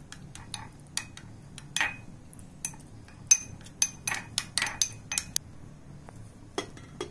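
Metal spoon clinking against a small glass bowl as it stirs a thin slurry of maida (refined flour) and water: a string of irregular sharp clinks, thinning out near the end.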